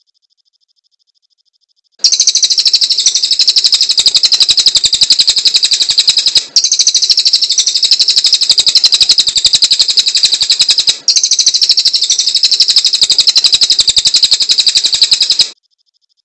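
Cililin songbird singing a loud, rapid, high-pitched trill of about ten notes a second. It starts abruptly about two seconds in, breaks off briefly twice and cuts off suddenly near the end.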